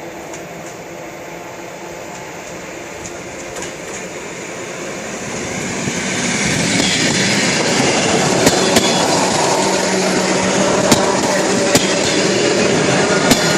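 Russian suburban electric train approaching and passing close by, growing louder over the first several seconds and then running loud. Its wheels give several sharp clicks over the rail joints.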